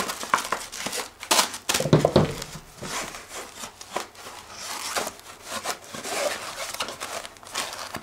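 Black fabric sun hood of a Parrot Skycontroller rustling and crinkling as it is handled, with its foam insert being worked into it, giving irregular soft knocks and scrapes.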